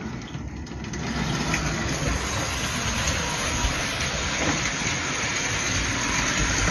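Lionel No. 8 standard gauge toy electric locomotive running along its track: the steady, noisy running of its freshly cleaned and oiled motor, gears and wheels on the rails.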